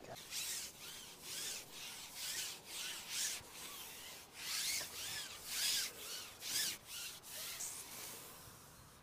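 Carbon fishing pole sliding and rubbing through the angler's hands as it is moved hand over hand: a quick series of short rasping strokes, about two a second.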